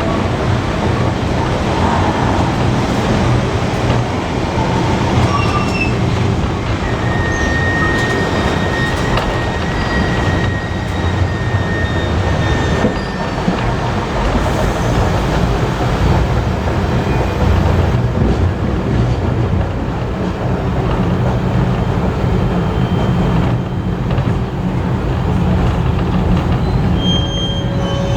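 Passenger carriage running along the track, heard from on board: a steady, loud rumble of wheels and running gear. A thin high wheel squeal against the rail lasts a few seconds from about eight seconds in.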